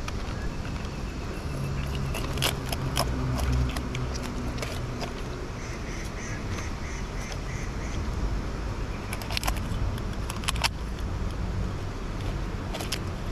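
Large knife scraping scales off a fish on a rock, in short rasping strokes over a low outdoor rumble. About halfway through comes a brief run of quick repeated high notes.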